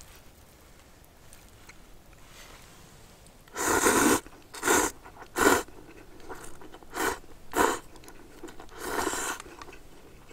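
Someone slurping and eating rice-vermicelli noodles with chopsticks: about six short, noisy slurps a little under a second apart, starting about three and a half seconds in, the first and last a little longer.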